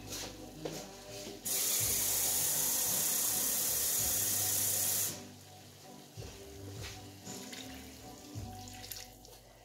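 Kitchen tap running full for about three and a half seconds, starting and stopping abruptly, as an empty can is filled with water. Then a quieter pour of water from the can into a skillet of beans.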